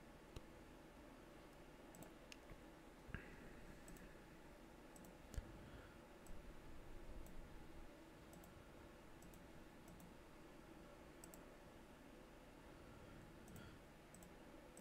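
Near silence broken by faint, scattered computer mouse clicks at irregular intervals, a dozen or so over the stretch.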